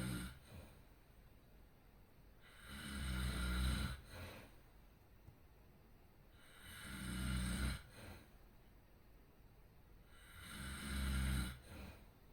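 A sleeping person snoring: three long snores about four seconds apart, each swelling in loudness and then stopping abruptly, with a short, softer breath out after each.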